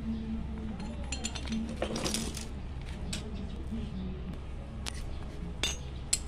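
Metal clinks and knocks as a motorcycle front brake caliper is handled and pulled apart by hand. There is a cluster of quick clinks about two seconds in, then a few single sharp clinks toward the end, over a steady low hum.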